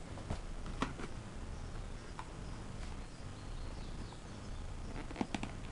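Faint handling of a cardboard sunglasses box and its paper wrapping: a few light scattered clicks and scrapes, with a short cluster of them about five seconds in, over a low steady hum.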